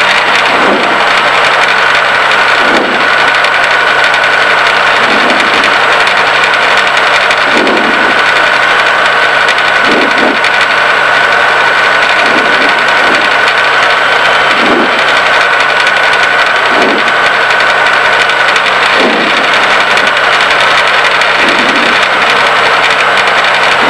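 Diamond DA40's single piston engine and propeller droning steadily inside the cockpit on final approach, with a steady high whine running through it.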